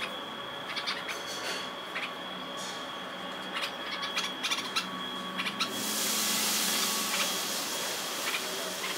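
Red-vented bulbuls giving short, sharp chirps, scattered at first and coming thicker around four to five seconds in, over a steady thin high whine. About six seconds in, a hiss comes up and then eases off.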